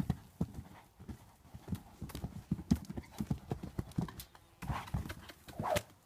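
A young horse's hooves cantering on a sand arena: a run of dull, uneven thuds as it takes a fence. Near the end there are two louder rushes of noise, about a second apart.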